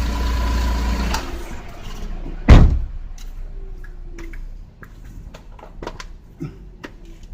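Nissan Otti H91W's engine running, its sound dying away over the first few seconds. A single heavy thump, like a door or bonnet shutting, comes about two and a half seconds in, followed by a few light clicks and knocks.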